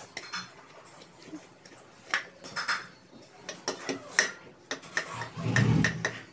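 Scattered light knocks and clinks of household things being handled, a few irregular taps every second or so.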